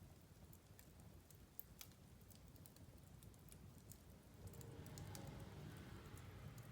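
Wood fire crackling: scattered sharp snaps and pops over a low rumble of burning, which grows a little louder about four and a half seconds in.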